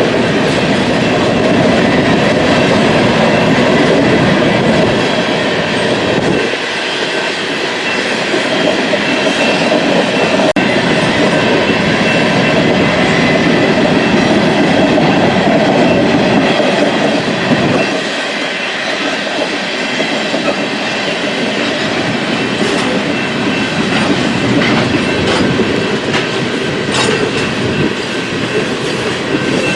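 Freight train cars rolling past on the BNSF line: a steady, loud rumble of wheels on rail with clickety-clack over the joints and a faint high ringing from the wheels.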